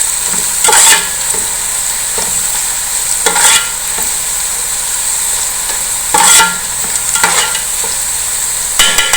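Onions and whole garam masala spices sizzling steadily in hot oil in a cooking pot, with a spoon scraping the pot five times as they are stirred.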